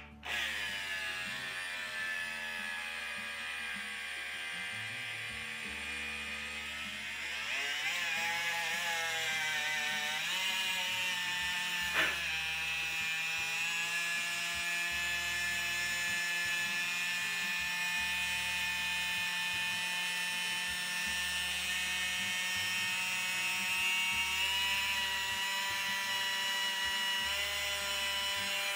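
DeWalt cordless drill motor running continuously with the trigger held, a steady whine in a test run after reassembly. Its pitch dips at the start, wavers about eight to ten seconds in, then holds steady. There is a single click about twelve seconds in.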